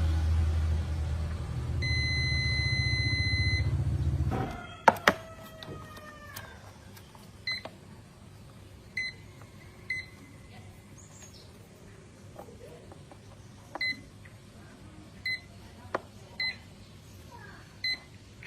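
A low machine hum that stops about four seconds in, with a long electronic beep shortly before it stops. Then a couple of sharp clicks with a falling ring, followed by short electronic beeps every second or two.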